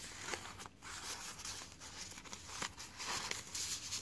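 Paper rustling and sliding as stiff postcard cards are drawn out of and tucked back into a paper envelope pocket in a handmade journal, with a few small ticks of handling.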